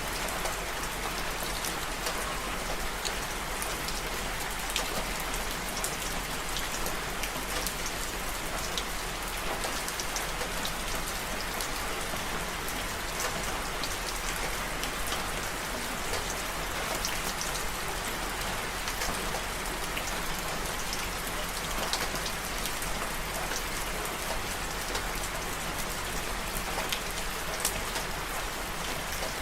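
Steady rain: an even hiss of falling rain with many separate sharp drop ticks scattered through it.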